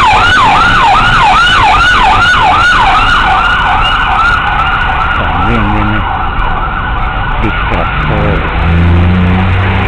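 Emergency vehicle siren sounding in quick falling sweeps, about two a second, fading over the first half and gone by about eight seconds in. A low steady drone follows near the end.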